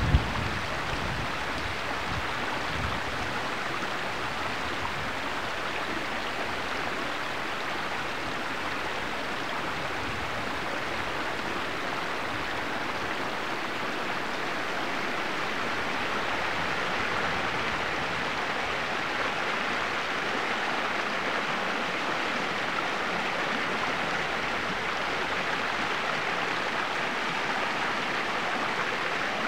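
A small stream flowing, giving a steady, even water noise.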